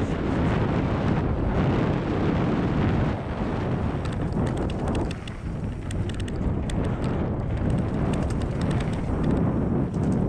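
Wind rushing over a helmet or body camera's microphone as a mountain bike rides fast down a dirt forest trail, mixed with the low rumble of the tyres rolling over the dirt. A run of light clicks comes through around the middle.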